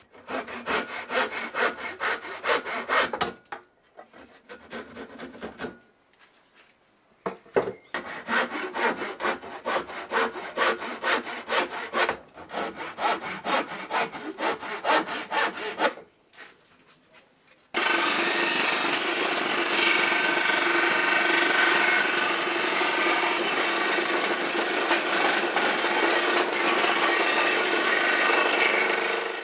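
Hand backsaw cutting through the end of a wooden walking stick in two bouts of quick back-and-forth strokes, with a pause between. About eighteen seconds in, a disc sander starts a steady, even sanding noise as the stick's cut end is held against the spinning disc.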